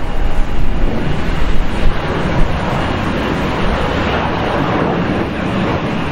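Boeing 737-800's jet engines on final approach just before touchdown: a steady jet rush that fills out over the first couple of seconds as the airliner comes close, over wind rumble on the microphone.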